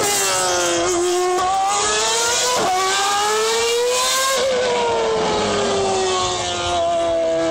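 Open-wheel single-seater race car engine revving high as the car laps the circuit. Its pitch slides down and climbs back several times through gear changes, with quick sharp blips about a second and a half in and again near three seconds.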